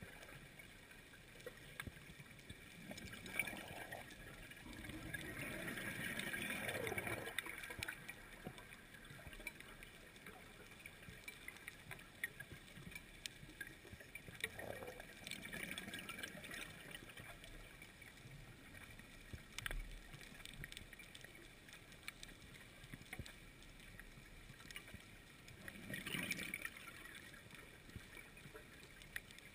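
Faint underwater ambience on a scuba dive: a steady hiss with scattered sharp clicks, and swells of louder, water-like noise about six seconds in, around fifteen seconds and again near the end.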